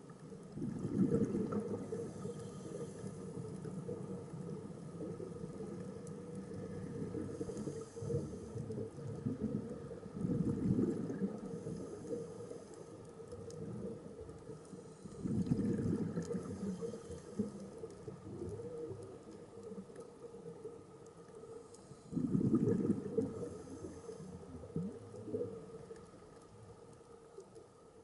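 Scuba diver's regulator breathing heard underwater: exhaled bubbles rumble out in a loud burst every several seconds, about four times, with fainter hissing inhalations in between, over a steady low hum.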